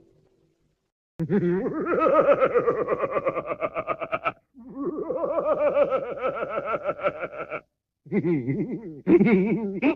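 Cartoon laughing sound effect: a pitched, wobbling laugh chopped into rapid pulses, in two stretches of about three seconds each with a short break, then starting up again near the end.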